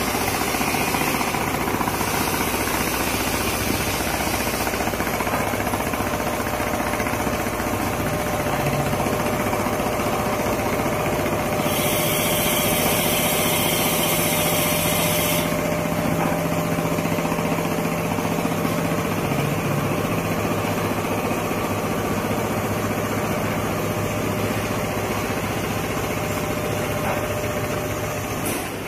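Richpeace CNC large-format sewing machine running and stitching a quilted diamond pattern into a sofa upholstery panel: a steady, rapid mechanical chatter with a steady hum under it. A hiss comes in about twelve seconds in and stops about four seconds later.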